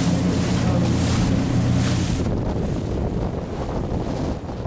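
Tour boat under way: the engine drones steadily under the rush of the wake and wind buffeting the microphone. A little over two seconds in, the engine hum and the hiss fade, leaving rough wind and water noise.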